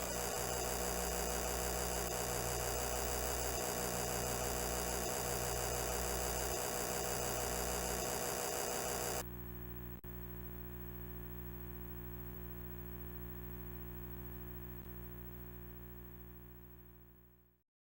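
Electrical hum of a broadcast on dead air. For about the first nine seconds it is overlaid by louder, harsh, wavering static, which cuts off suddenly. The hum then runs on alone and fades out near the end.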